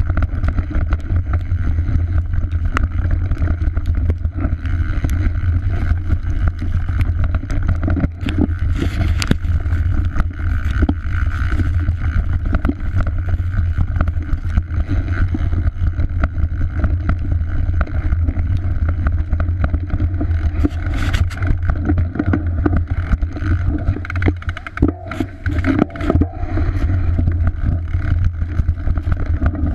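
Mountain bike riding fast down a dirt forest trail, heard from a body-mounted camera: heavy wind rumble on the microphone under the hiss of tyres on dirt, with frequent sharp clicks and knocks as the chain and frame rattle over bumps.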